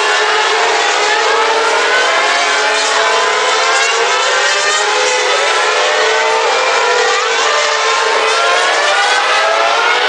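Several open-wheel racing cars' high-revving V8 engines running at once, their pitch climbing again and again as they accelerate and shift up through the gears, one car's note overlapping the next.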